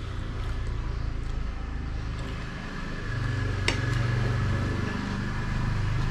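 A low, steady engine hum that grows a little louder about three seconds in, with a single sharp clink of a metal spoon on a plate a little after the middle.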